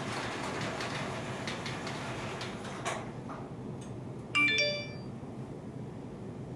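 Garage door opener running with a steady rattling noise that stops with a click about three seconds in. About a second and a half later a single electronic notification chime sounds, the phone app's alert that the garage door has closed.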